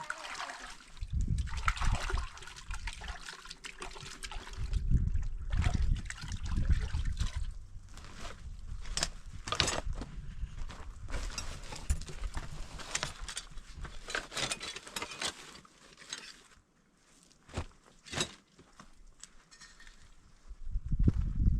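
Water sloshing and trickling, mixed with irregular clicks and knocks.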